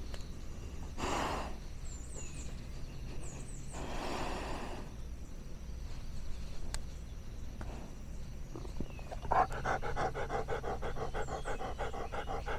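Elderly dog breathing close to the microphone on his harness: a few slow breaths, then rapid, even panting from about nine seconds in.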